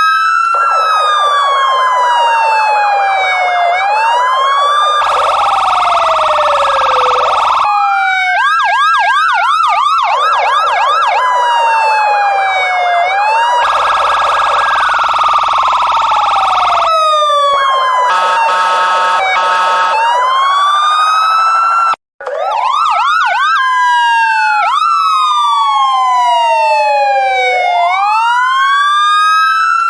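Electronic police siren sound effect, loud and continuous, switching between a slow rising-and-falling wail, a fast warbling yelp and long steady buzzy blasts, with several siren tones overlapping. The sound cuts out for an instant about twenty-two seconds in.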